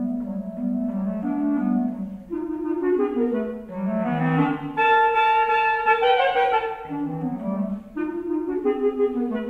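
Two clarinets playing a duet, a lower part and an upper part moving note by note; about halfway through, the upper clarinet climbs into its brighter high register.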